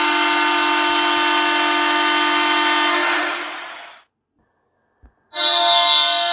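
Recorded hockey goal horn sounding steadily, then fading out about three to four seconds in. After a second of silence and a faint click, a second goal horn starts, with a stronger high tone.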